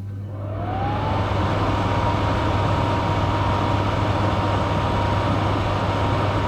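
Stove extractor fan motor spinning up, its whine rising in pitch over the first second and then holding steady over a low hum and the rush of air.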